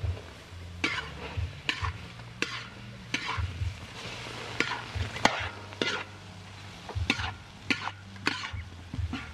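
Metal ladle scraping and stirring fish pieces and chopped tomatoes in a large aluminium wok, about a dozen strokes at a little over one a second, over the sizzle of the fish frying in oil.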